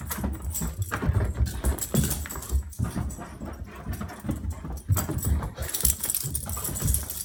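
Labradoodle dashing around a carpeted room in a fit of zoomies, with a quick, irregular run of thudding paw falls and knocks.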